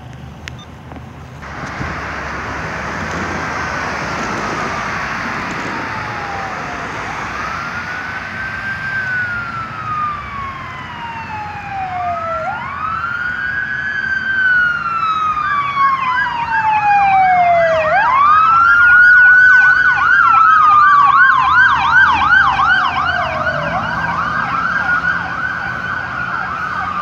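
Emergency vehicle sirens approaching: a slow wail rising and falling about every five to six seconds, joined about halfway through by a fast yelp, over a steady rushing noise. The sirens grow louder until about twenty seconds in.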